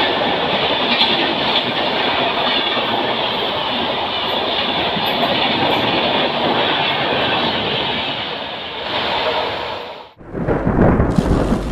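Coaches of an express passenger train passing at speed alongside a station platform: a steady rushing noise of wheels on the rails that dips briefly near the end. It then cuts off abruptly and a loud, low rumble begins.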